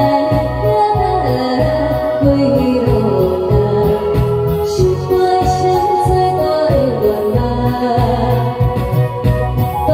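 A woman singing live into a handheld microphone over a loud backing track with a steady bass beat, amplified through a stage sound system.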